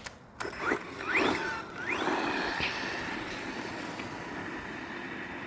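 Electric motor of a Blackzon Smyter Turbo RC car whining in quick rising sweeps as the throttle is blipped, then settling into a steady high whine that slowly fades as the car drives off over grass.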